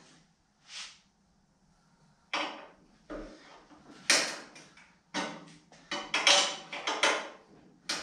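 Hand wrench working tight, sticking nuts: a series of irregular metallic clicks and clanks, a few early on and then a quick run of them over the last three seconds.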